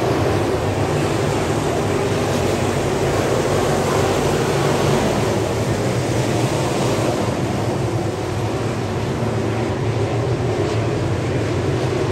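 A field of 602 crate dirt late model race cars running at speed, their V8 engines blending into one steady drone of many engines. The sound swells a little as cars pass close by about halfway through.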